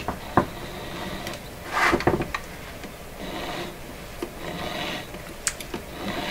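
Handling noises from a cordless drill used as a hand-turned coil-winding jig: clicks and knocks, a short scraping rustle about two seconds in, then a soft rasping rub as the chuck with the coil form is turned by hand.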